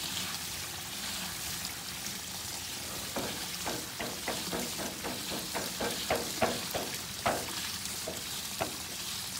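A thin metal rod tapping and scraping against the pool-enclosure screen and its frame, in a run of light taps about three a second for several seconds midway, over a steady hiss.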